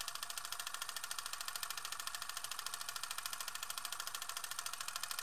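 A steady, fast, hissy electronic pulsing, about a dozen even beats a second, from the channel's end-card outro.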